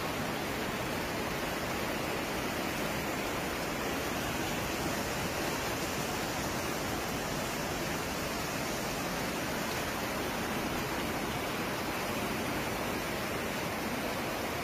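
Flash-flood water rushing down a town street, a steady, even rush of water with no breaks.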